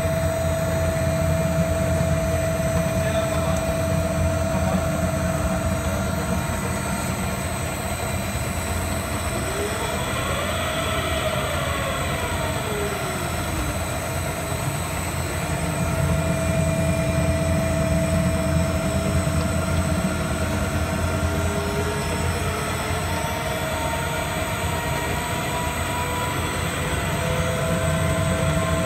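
Vaculiq2000 vacuum fruit-processing line running under load while puréeing strawberries: a steady machine hum with a constant tone over it. Around ten seconds in, a fainter tone rises and falls once.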